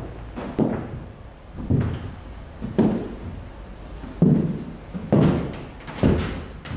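A slow series of dull, heavy thuds, about one a second, each with a short ringing tail.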